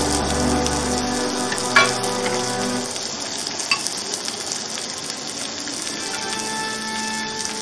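Beef steaks and vegetables sizzling steadily on an electric grill's plates, with soft background music over it. A sharp click comes about two seconds in and a lighter one a couple of seconds later.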